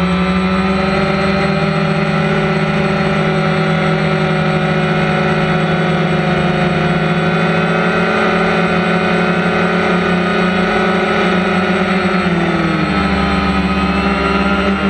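DJI Phantom quadcopter's motors and propellers droning steadily, heard close up from the camera mounted on the drone. The pitch drops a little about twelve seconds in as the motor speeds change.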